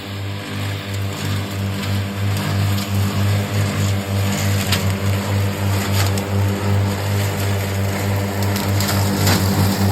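Tracked remote-controlled lawn mower running steadily under load with a pulsing hum as it cuts into brush, with a few short sharp crackles.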